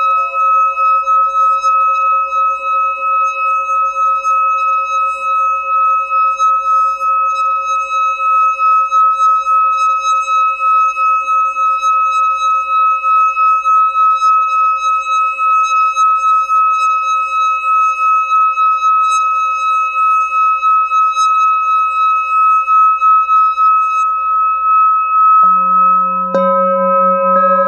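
A hand-held metal singing bowl is rimmed with a wooden mallet, giving a sustained ringing tone with a slight regular pulsing in loudness. Near the end, other bowls on the table are struck, adding a lower ringing tone alongside it.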